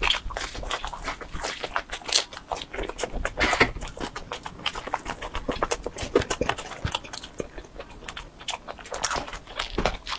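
Close-miked eating sounds of a person biting and chewing pizza crust: many irregular crisp crunches and mouth clicks.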